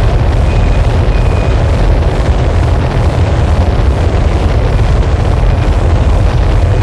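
Harsh noise wall: a loud, dense, unchanging mass of distorted noise with a heavy bass rumble and a crackling texture, with no rhythm or melody.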